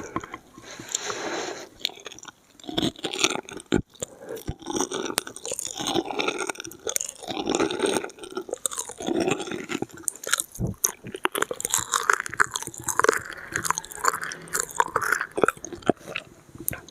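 Close-miked ASMR mouth sounds: wet chewing and smacking, with tongue and lip clicks in a quick, irregular run.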